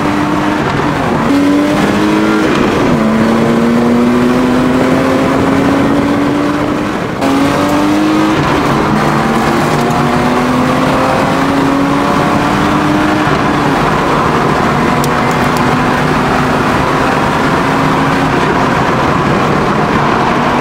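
Car engine heard from inside the cabin, accelerating hard up through the gears: its pitch climbs steadily and drops sharply at each upshift, four times, then holds near steady at speed and eases off near the end, over road and wind noise.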